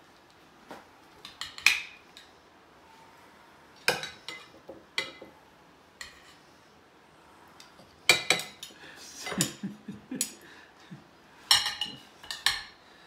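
Metal serving spoons clinking and scraping against a serving bowl and plates as chicken in sauce is dished out: irregular clinks in clusters, the loudest about a second and a half in, and a busier run of clinks in the second half.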